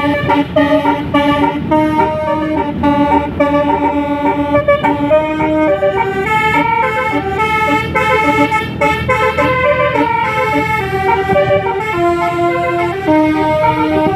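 Bus basuri (telolet) musical horn playing a tune: several steady horn tones step from note to note a few times a second, over a continuous low rumble.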